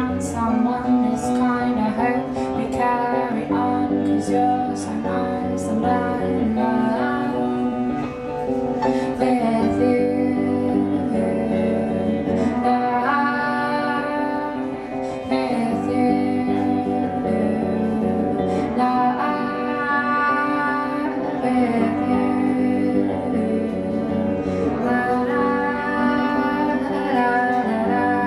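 A woman singing a song over guitar accompaniment.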